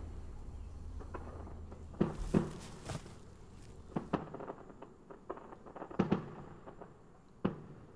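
A few scattered dull thumps and pops, irregularly spaced a second or two apart, over a faint low hum that fades out about halfway through.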